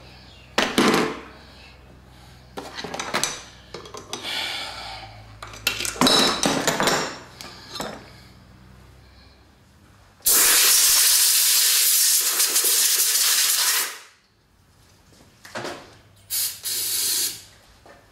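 Metal tools clinking and knocking as a bearing puller is worked on an induction motor's rotor shaft. Then an aerosol can sprays in one long steady hiss of about four seconds, followed by two short bursts near the end.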